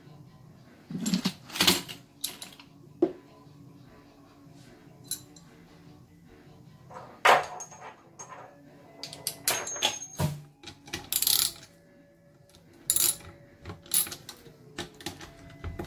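Scattered clinks and clatters of metal and plastic: a socket and small nuts set down on a workbench as the rear plastic cover of a Denso small-case alternator is taken off.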